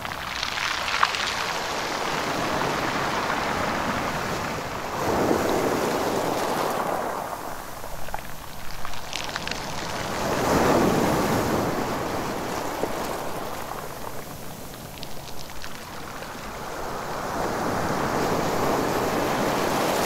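Sea waves surging onto a rocky beach, the surf swelling and falling back about every five seconds, four times, with light crackling between the surges.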